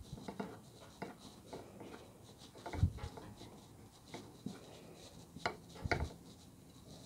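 Fingers handling small metal parts on a model steam locomotive, working a nut onto a smokebox fixing: scattered light clicks and rubbing, with a few louder short knocks about three seconds in and near six seconds.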